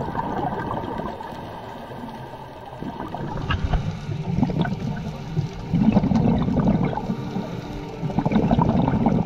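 Underwater scuba sound: a diver's exhaled bubbles rumbling and crackling in surges, three of them in the second half, each a second or two long.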